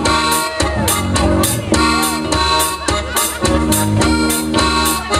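Live rock band playing an instrumental intro: drum kit keeping a steady beat with cymbal hits, under bass, electric guitar and sustained keyboard chords.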